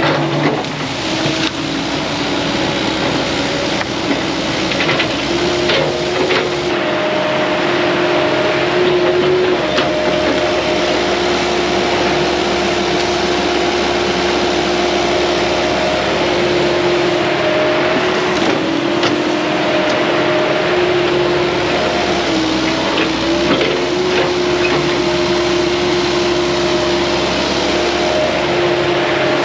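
CAT 308 excavator's diesel engine and hydraulics running steadily under load, its hum dipping slightly in pitch now and then, with a few scattered cracks of wood as trees are pushed over.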